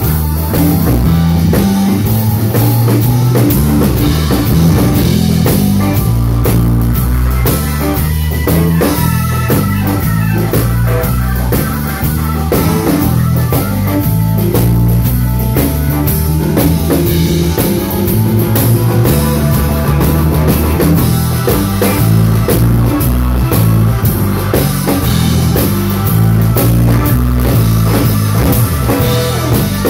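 Live blues band playing: electric bass, Roland stage piano and a drum kit, loud and steady.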